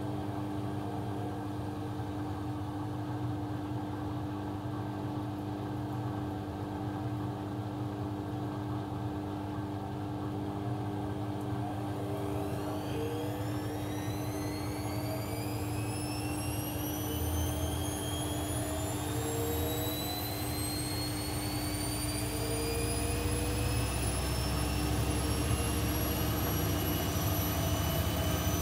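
AEG Lavamat 1400 front-loading washing machine running up into a spin: a steady hum at first, then about twelve seconds in a motor whine that climbs steadily in pitch while a low drum rumble grows louder as the drum gathers speed.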